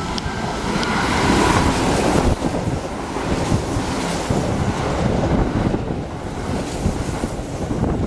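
Kintetsu electric train running through the station at speed without stopping, a rush of wheels on rail and moving air that builds to its loudest about two seconds in. It then holds as a steady rumble while the cars go by.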